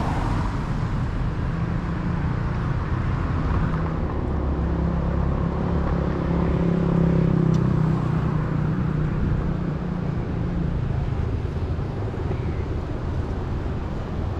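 Road traffic: a steady rumble of passing vehicles, with one engine's hum growing louder towards the middle and then fading away.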